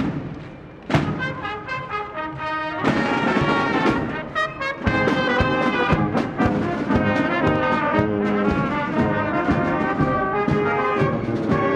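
A school marching band of trombones, trumpets, tuba and saxophones playing a march. A sharp drum stroke comes about a second in, and the full band is playing by about three seconds in.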